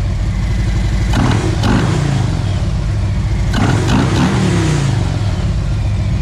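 Harley-Davidson Tri Glide's V-twin engine idling with a fresh Screaming Eagle Extreme Ventilator air cleaner, the throttle blipped twice so the revs rise and fall about a second in and again near the middle.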